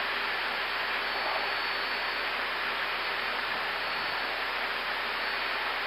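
Steady even hiss of an Airbus A320 flight deck's background noise in flight, with a faint high steady whine.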